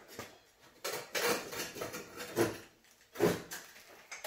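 Clunks and rattles from a pickup's front bumper being tugged and worked loose from its mounts, in a few short bursts.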